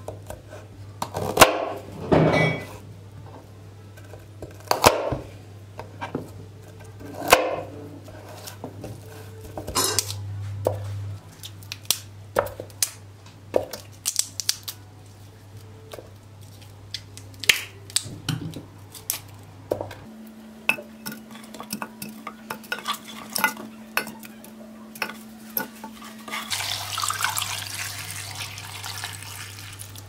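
A kitchen knife chopping broccoli on a wooden cutting board, a series of separate knocks and cuts, then florets and utensils clinking against a stainless-steel pot. A few seconds of running-water hiss come near the end, over a steady low hum.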